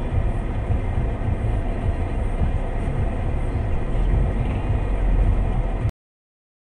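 Steady low rumble of a moving vehicle, cutting off suddenly into silence near the end.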